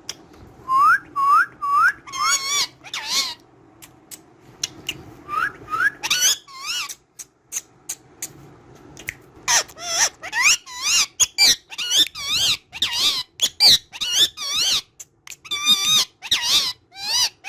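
Ringneck parakeet calling and whistling: a few short rising chirps early, then a quick run of high, warbling chattering calls that comes thick and fast from about halfway through.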